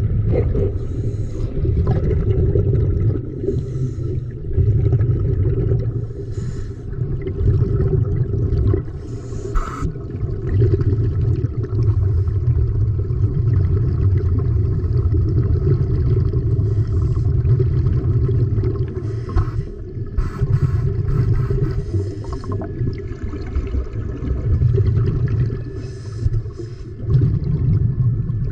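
Muffled underwater rumble of water moving around a camera held below the surface, swelling and easing every few seconds, with faint scattered crackles.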